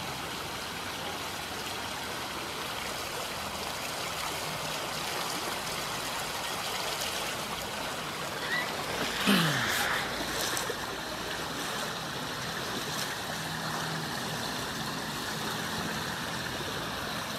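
Floodwater rushing steadily along a flooded street, with a brief louder burst about nine seconds in.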